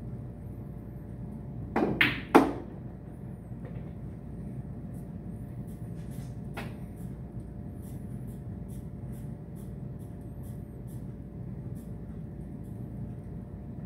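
A pool shot: the cue tip strikes the cue ball with a sharp click, and about half a second later the cue ball hits an object ball with a louder click. A few much fainter knocks of the balls follow, over a steady low hum.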